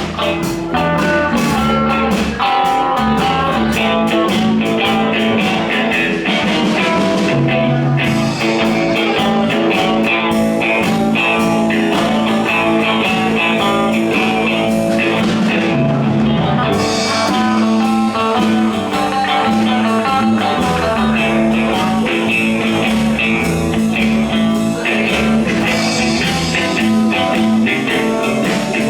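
Live band playing an instrumental blues passage led by guitar, over a steady bass line.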